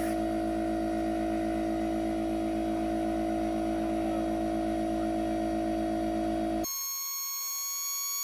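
Electric air compressor running steadily while inflating an inflatable paddle board, a constant motor hum with a strong pitched whine. About six and a half seconds in it cuts off abruptly and gives way to a quieter, higher steady whine.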